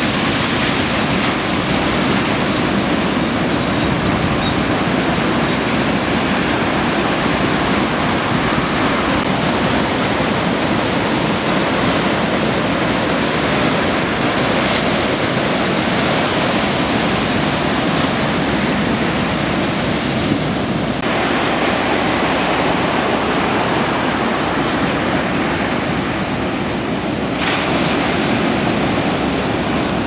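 Ocean surf: large waves breaking and white water washing up the beach in a continuous, heavy rush. About two-thirds of the way in, the hiss abruptly turns duller for several seconds, then comes back.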